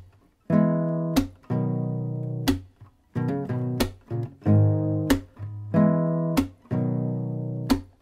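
Closing theme music: guitar chords struck about every second and a half, each ringing out and fading before the next, with a short run of quicker notes in the middle.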